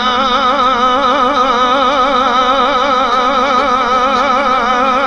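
A male singer holding one long note with a strong, even vibrato in an Iraqi song, over instrumental backing.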